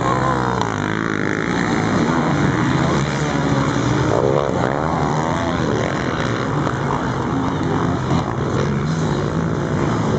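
A pack of sport quads (ATVs) racing away from a mass start and passing close, many engines revving hard at once, their pitch rising and falling.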